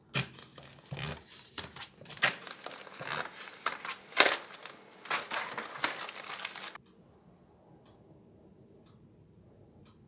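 Clear plastic shrink wrap being torn and peeled off a smartphone box and crumpled in the hand, crinkling and crackling with many sharp snaps. It stops about seven seconds in, leaving only a few faint ticks.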